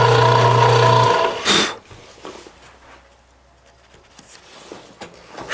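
Milling machine motor running with a steady hum, cut off abruptly about a second in, followed by a single sharp knock; after that only a few faint clicks.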